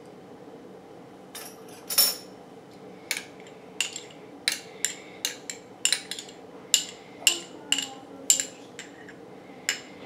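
A metal spoon clinking against a small glass bowl as thick ketchup is scraped and knocked out of it. About a dozen sharp clinks come at an uneven pace, the loudest about two seconds in.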